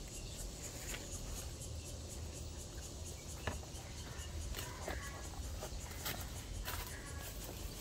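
Footsteps and light rustling of someone walking through a vegetable garden over bare soil and dry straw mulch, with a few soft clicks, under a steady low rumble.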